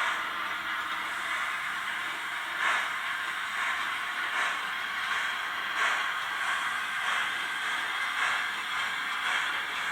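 Model steam locomotive's sound decoder (Piko XP 5.1) playing steam sound through its small onboard speaker: a steady hiss with a soft chuff roughly every one to one and a half seconds.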